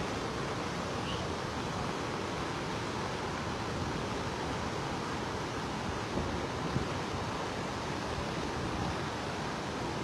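A river in flood rushing steadily: an even, unbroken wash of water noise.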